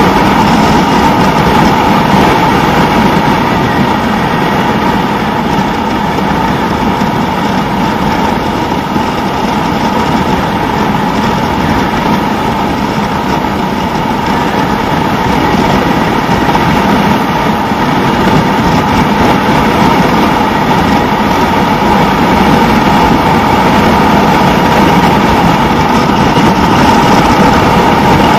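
Suzuki SV650's V-twin engine running steadily at cruising speed on the move, mixed with heavy rushing wind noise.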